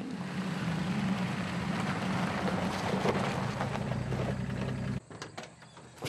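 A steady mechanical hum and rumble with a noisy hiss over it, cutting off suddenly about five seconds in.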